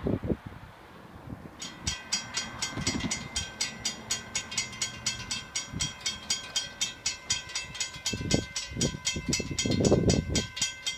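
A railroad grade-crossing warning bell starts up about a second and a half in and rings on rapidly and steadily as the crossing signals activate for an approaching train. Low gusts of wind rumble on the microphone underneath, loudest near the end.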